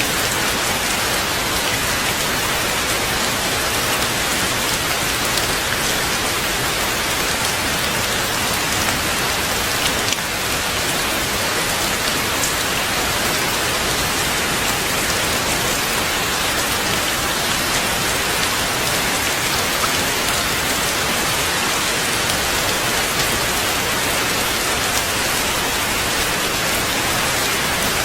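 Heavy rain falling steadily: an even hiss of countless drops, with a few sharper drip ticks standing out now and then.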